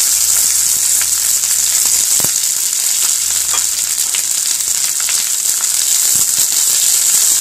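Fresh curry leaves frying in hot oil in a nonstick pan: a loud, steady sizzle with scattered pops and crackles. The leaves are still frying toward crisp.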